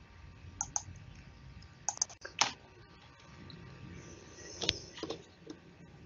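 Several separate, irregularly spaced clicks of a computer keyboard and mouse.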